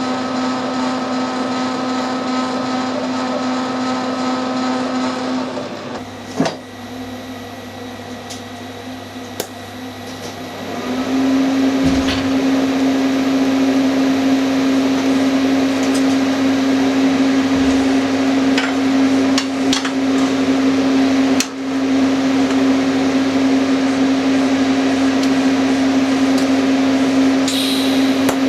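An electric machine tool in a metalworking shop running with a steady hum on one held tone. The sound changes about six seconds in and gets louder from about eleven seconds, with a few light clicks over the running.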